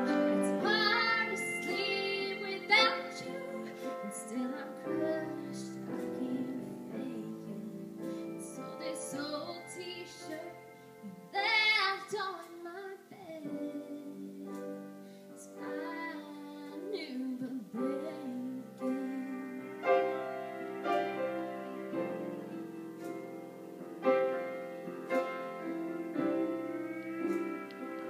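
A woman singing a song with piano accompaniment.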